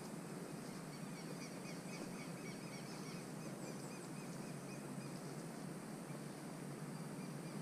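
Faint outdoor ambience with small birds chirping repeatedly over a steady background hiss.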